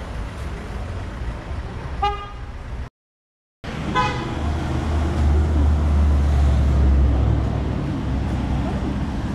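City street traffic with two short car-horn toots about two seconds apart, with a moment of silence between them. After the second toot a low rumble of traffic swells for a few seconds.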